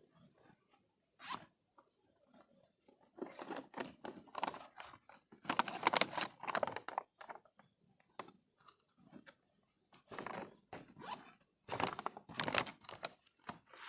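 Irregular rustling, scraping and crunching in short bursts, loudest about six seconds in and again near the end, with zipper-like pulls, from gear being handled.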